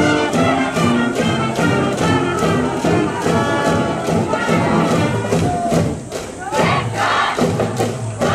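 School brass band with sousaphones playing a cheer tune over a steady beat. The music breaks off about six seconds in, and a cheering section shouts a chant in unison.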